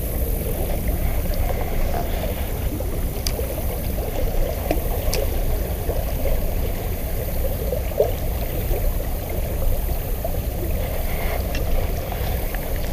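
Creek water running and gurgling steadily in the current, with a few faint ticks.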